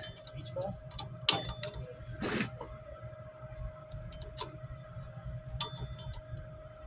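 Scattered small metallic clicks and scrapes as pliers slowly twist a drum-brake shoe hold-down spring cup against its spring to free it from the pin. The sharpest clicks come about a second in and again near the end.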